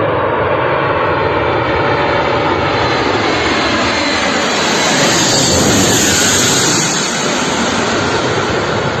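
Airplane flying past: a steady engine noise that grows to its loudest a little past midway, its tones slowly falling in pitch as it goes by.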